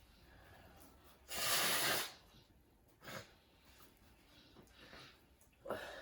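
One loud, hard sniff through a runny nose, lasting under a second, about a second in, followed by a few fainter breaths.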